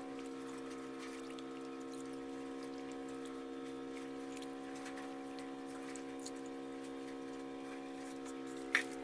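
Faint splashing and dripping as raw cassava slices are rinsed by hand in a bucket of water and lifted into a basket, under a steady droning hum of several held tones; one sharp tap near the end.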